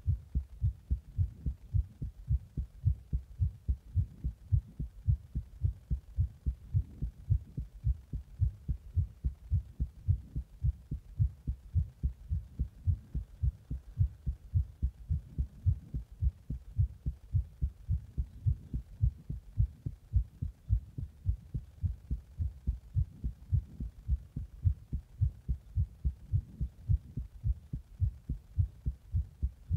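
A human heartbeat recorded close up: steady, regular low thumps. It is the heart after drinking an energy drink in the bath and pressing on the chest.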